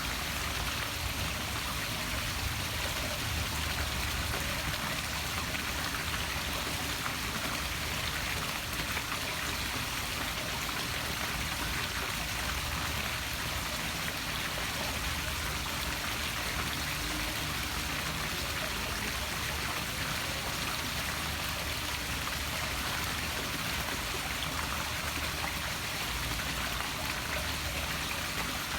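Poolside waterfall splashing steadily into a pool.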